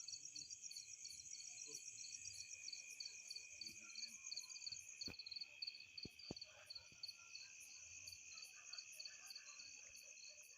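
Crickets and other night insects chirring faintly in several overlapping steady trills at different pitches, one of them pulsing about three times a second. A few faint clicks come in around the middle.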